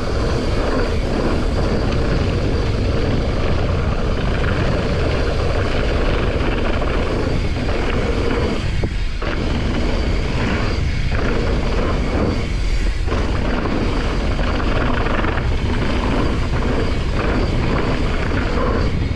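Wind rushing over an action camera's microphone and tyres rumbling on gravel and dirt as a mountain bike rides fast downhill. The rush dips briefly a few times around the middle.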